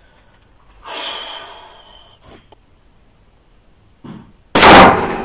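A single shot from a Taurus Raging Bull revolver in .454 Casull, about four and a half seconds in: a very loud, sudden blast with a reverberating tail in an indoor range. About a second in there is a softer breath-like rush.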